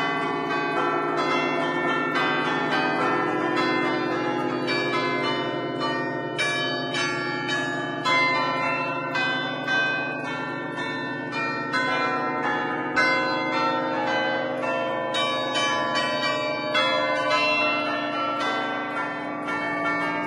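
A ring of ten church bells in A, cast by Barigozzi in 1950, played as a fast melody from a baton keyboard in the traditional Bergamasque festive allegrezza style. The bells are struck several times a second, and each stroke keeps ringing under the next.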